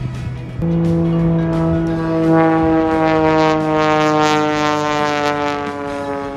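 Single-engine aerobatic propeller plane flying overhead, its engine buzz stepping up sharply about half a second in. The buzz then grows fuller and slowly falls in pitch as the plane passes.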